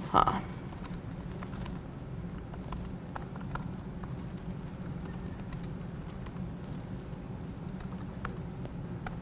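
Computer keyboard typing: scattered keystrokes as shell commands are entered, over a steady low hum. A brief louder sound right at the start.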